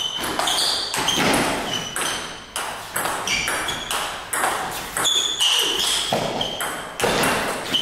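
Table tennis ball being struck by rubber paddles and bouncing on the table in rallies: quick sharp clicks, two or three a second, many with a short ringing note.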